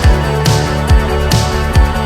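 Background music with a steady driving beat: kick drum about every 0.4 seconds under sustained guitar and synth chords.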